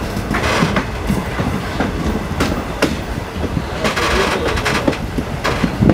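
Passenger train rolling along the track: a steady rumble of the cars, with irregular clicks and knocks as the wheels pass over rail joints.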